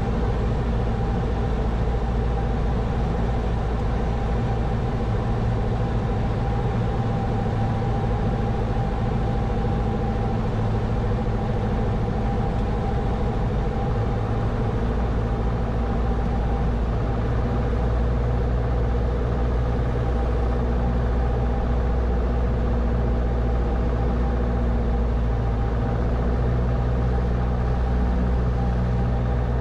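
Steady drone of a Grumman American AA-5's single piston engine and propeller, held at reduced power on final approach to land.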